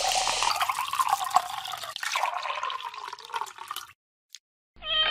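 Soda water poured from a bottle over ice into a glass: a steady splashing pour whose pitch rises slightly as the glass fills, stopping about four seconds in. Near the end a cat's meow begins, falling in pitch.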